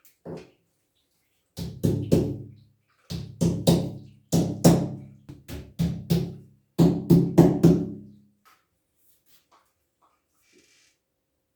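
A series of sharp knocks in irregular groups of two to four, each with a short, low, drum-like ringing. They stop a little past the middle.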